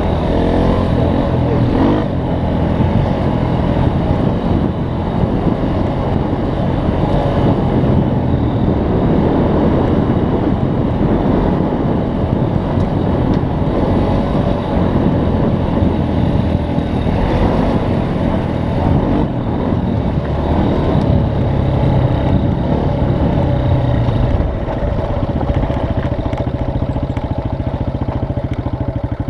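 Off-road vehicle's engine running steadily as it drives over a rough dirt trail, with continuous rumble and jolting noise from the ride.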